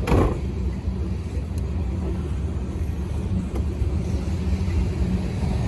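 A pickup's hard tonneau cover shut over the bed with one thud right at the start, then a couple of faint clicks over a steady low rumble.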